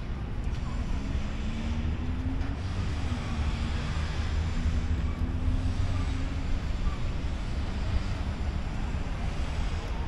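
City traffic: a steady low rumble with a vehicle's engine hum that comes in about a second in and fades out after about six seconds.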